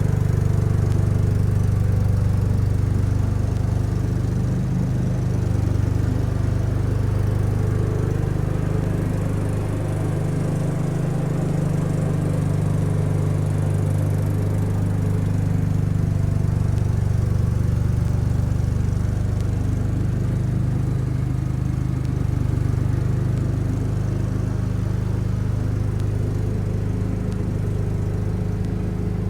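1975 Case 224 garden tractor's engine running steadily, a low, even engine note with only small rises and dips in level.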